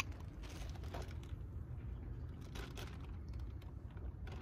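Low, steady wind rumble on the microphone, with a few faint soft clicks and sips as a man drinks from a can of coffee.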